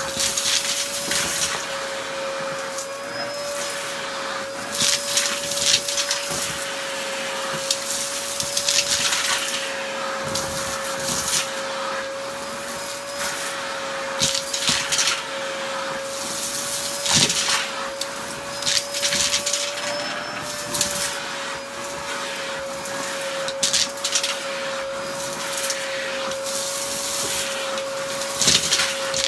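Stick vacuum cleaner running with a steady motor whine while sucking debris off a shag rug, with frequent bursts of crackling and rattling as bits of the mess are pulled up into it.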